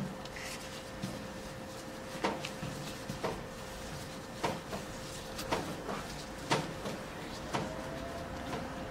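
Body sculpting machine running with its handpiece working over the skin: a steady tone with a short click about once a second.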